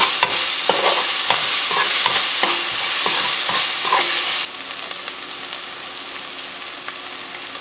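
Onions, green chilies and ginger-garlic paste sizzling in hot oil in a pressure cooker, with a spoon scraping and knocking against the metal pot as it is stirred. About four and a half seconds in, the stirring stops and the sizzle drops to a quieter, steady hiss.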